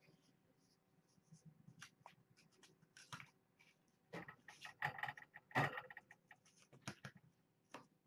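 Small handling noises: scattered light clicks, taps and rustles, busiest and loudest from about four to six seconds in.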